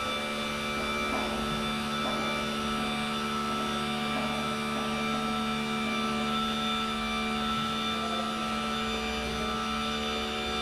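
Electric dump-truck tarp motor running steadily, unrolling the tarp as the tarp arms swing back over the bed: a continuous hum with several steady tones.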